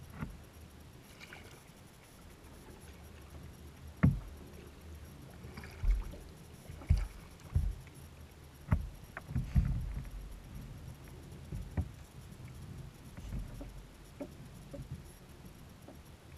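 Plastic kayak hull knocked and bumped as the paddler shifts and handles the paddle: irregular short thumps, about a dozen, the sharpest about four seconds in, over a faint low rumble.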